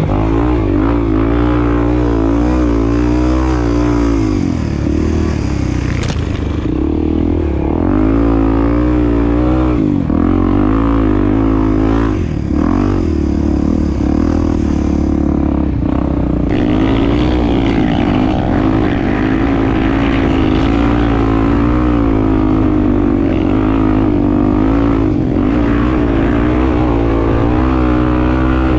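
Honda XR250 Tornado's single-cylinder four-stroke engine running under way, the revs rising and falling continually as the throttle opens and closes, with a few brief dips.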